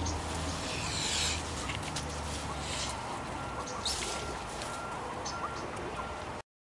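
Aviary ambience: several short, high-pitched bird chirps over a steady low hum, with a brief rustle about a second in. The sound cuts off suddenly near the end.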